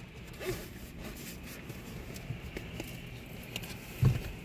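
Rain and wet snow pattering on a car's windshield and roof, heard from inside the car, with scattered small ticks of drops hitting the glass. About four seconds in, the windshield wiper sweeps across with a single low thump.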